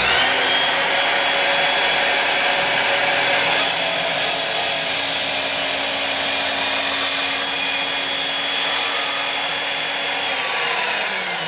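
Evolution 10-inch sliding miter saw running at full speed, its blade cutting through the end of an ash wood baseball bat. Near the end the saw is let off and the blade winds down with a falling whine.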